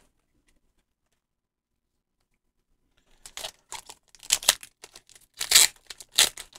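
About three seconds of near silence, then a foil Pokémon booster pack wrapper crinkling and tearing open in a string of sharp, crackly rustles.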